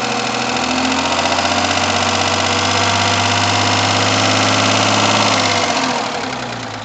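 Rover 75's 2.0-litre KV6 V6 engine (20K4F) running with a very heavy, rapid knock, fading about six seconds in. The knock comes from metal debris in cylinder five, one piece lodged between a valve and its seat and another loose in the combustion chamber.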